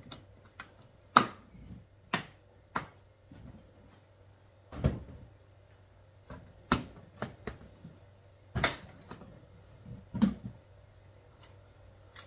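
Hard plastic toolboxes of a Hart stack system being handled, most likely as the smaller box is unlatched and lifted off the larger one: a series of about a dozen sharp plastic clicks and clacks at uneven spacing, with a duller thump about five seconds in.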